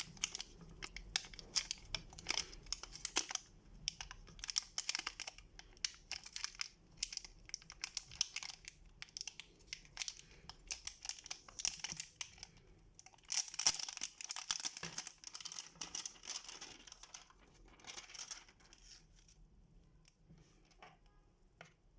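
Plastic packaging crinkling and tearing in hand as a USB Type-C charging cable is unwrapped, a dense irregular crackle that thins out near the end.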